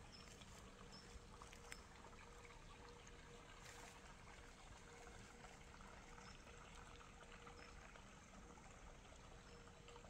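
Near silence: faint outdoor ambience, a low steady hiss with a few very faint, short high peeps.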